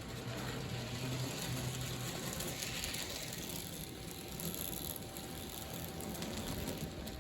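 American Flyer toy train locomotive running on its replacement motor, with a steady whir and fine rattle from the motor and gears.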